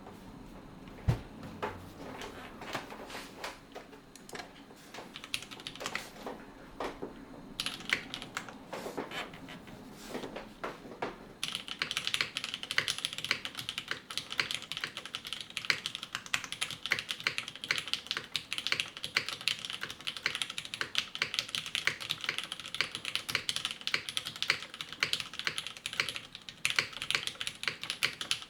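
Typing on a custom mechanical keyboard with Cherry MX Black linear switches in an aluminium case. The keys are first struck slowly and one by one, then, about eleven seconds in, in a fast, continuous run of clacks.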